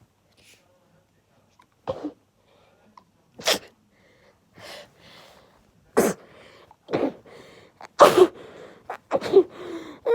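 A girl's sneezing fit: about six loud sneezes in a row, coming closer together toward the end.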